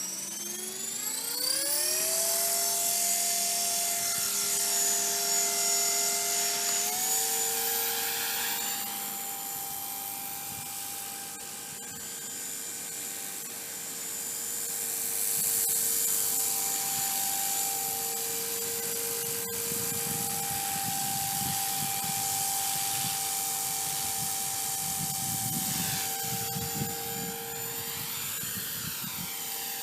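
Blade 300 X electric RC helicopter spooling up, its whine rising over the first two seconds. It then hovers with a steady whine of motor and rotors, which steps up slightly in pitch about seven seconds in.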